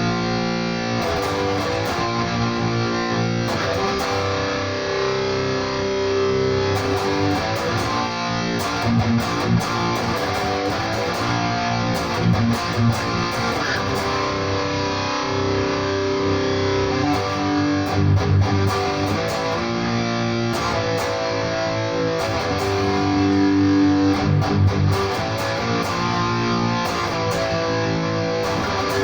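Electric guitar with an active bridge pickup played through a high-gain distortion preset on a Nux MG-300 modeller: sustained distorted chords and riffs with palm-muted attacks here and there.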